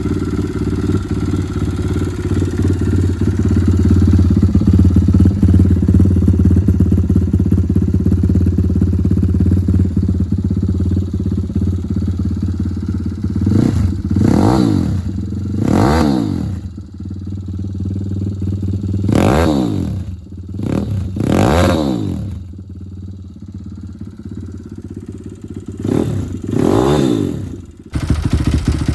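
YCF SM155 pit bike's single-cylinder four-stroke engine running through its stock exhaust and muffler: a steady idle for about the first half, then a handful of quick throttle blips, each rising and falling in pitch, back to idle between them. The sound breaks off abruptly a second before the end.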